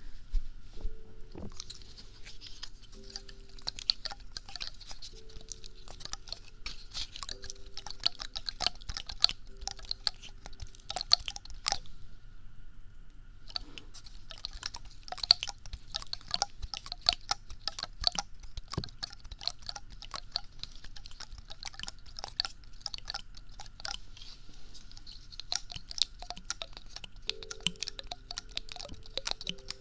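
Close-miked ASMR trigger sounds: dense, irregular crisp clicking and crackling that stops briefly about halfway through, with faint background music notes underneath.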